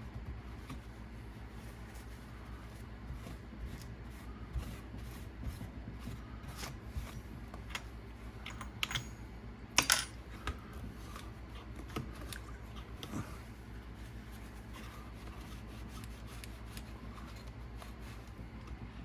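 Small clicks, taps and rubbing as parts and tools are handled and wiped clean on an RC car's chassis, with two sharper clicks about ten seconds in.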